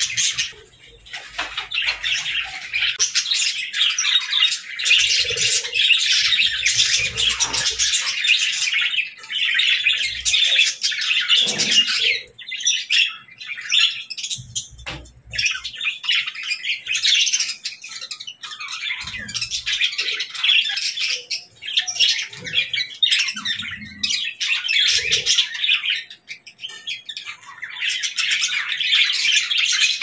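A group of budgerigars chirping and warbling in a dense, busy chatter, with a few short lulls.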